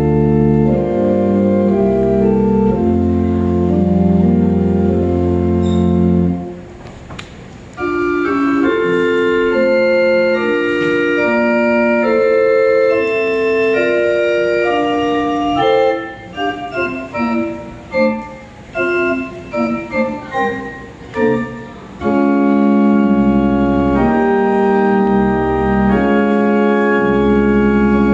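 Pipe organ playing: sustained chords over a deep bass, which break off about six seconds in. After a short pause comes a lighter passage without the low bass, then a stretch of short detached notes. The full sound with the deep bass returns about 22 seconds in.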